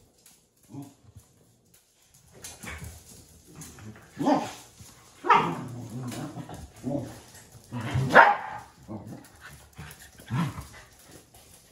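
Welsh corgis barking: a string of short, sharp barks, the loudest coming between about four and eight seconds in.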